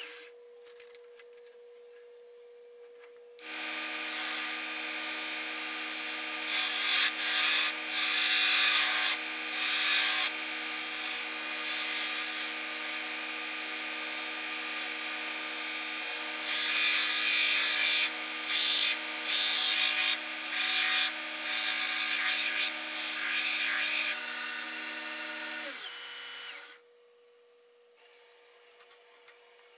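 Belt grinder running with a steady motor hum, a san mai knife blade ground against the abrasive belt in repeated scraping passes during shaping before heat treatment. The grinder starts a few seconds in and is switched off near the end, its motor winding down.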